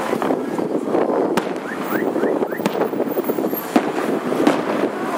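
Fireworks display: several sharp bangs of bursting shells, with a few short rising whistles in the middle, over steady traffic noise.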